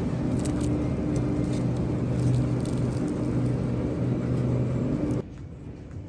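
Car in motion: a steady low rumble with a constant hum, cutting off abruptly about five seconds in.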